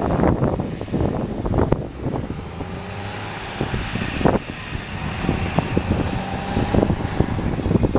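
Gusting blizzard wind buffeting the microphone in rough, uneven blasts, with a snow-clearing tractor's engine running underneath. The wind eases about two seconds in and picks up again near the end.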